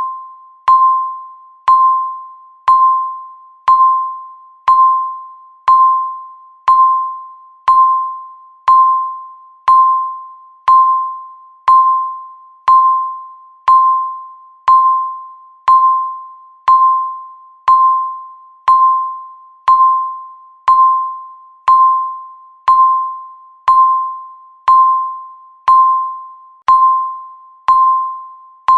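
Countdown timer beep: a single mid-pitched tone struck once a second, each beep starting sharply and fading away before the next.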